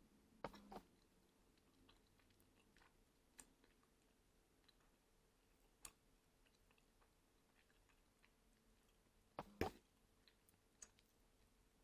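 A few faint, sharp clicks of a metal fork touching a ceramic plate and sticky sauced rice cakes, the loudest a quick pair of clinks about nine and a half seconds in, with a smaller pair near the start.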